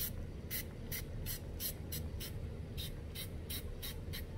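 Hand pump spray bottle spritzing a fine mist in quick repeated squirts, about three a second, each a short hiss.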